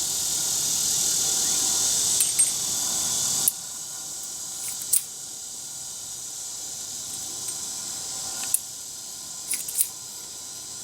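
A steady hiss cuts off sharply about three and a half seconds in. A few scattered light metallic clicks follow as a single-action revolver is worked: the loading gate and cylinder are clicked round and spent .327 Magnum cases are pushed out with the ejector rod.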